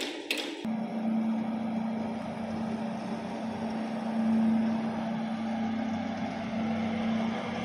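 Carpet extractor machine running: a steady motor hum with one constant tone over a rushing noise, coming in abruptly about half a second in after a sharp tap.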